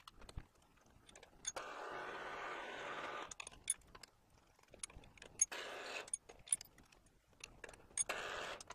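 Work at a milling machine while spot-drilling holes deeper for a tap's lead-in: scattered light metallic clicks and clinks, with three stretches of steady machine noise, the longest lasting under two seconds.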